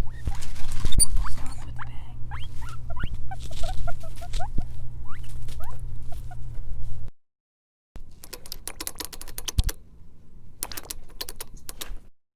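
Guinea pigs squeaking in many short rising squeaks over a low background hum. After a brief silence comes a rapid patter of dense clicks in two bursts.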